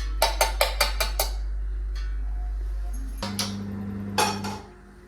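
A metal spoon clinks against a vessel six quick times in a row while curd is being mixed into buttermilk. After a pause there is a steady low hum and one more knock of utensils.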